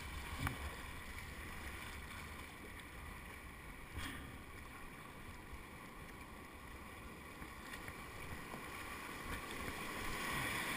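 Rushing, silty river water heard from a kayak on the Atuel River, growing louder about ten seconds in as the boat runs into a whitewater rapid. Two light knocks, about half a second and four seconds in.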